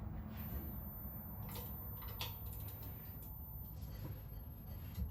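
Faint scattered clicks and scrapes over a low steady hum, as the engine is turned over by hand to spin the rear wheel in reverse.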